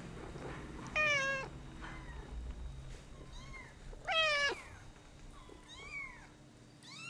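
A domestic cat meowing several times: two louder meows about a second in and about four seconds in, the loudest falling in pitch at its end, with a few shorter, softer meows between and after.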